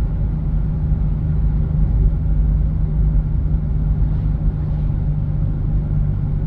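Steady low drone of a 1996 Audi A6 C4's 2.8 V6 engine and tyre noise, heard inside the closed cabin while the car cruises at an even speed.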